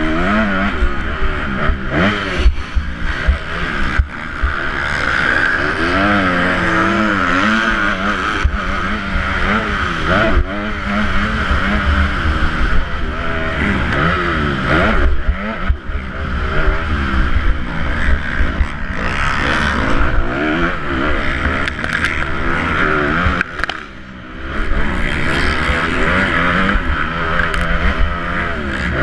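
Motocross bike engine revving hard up and down through the gears, heard from the rider's helmet camera with heavy wind buffeting on the microphone. The engine briefly drops off near the end.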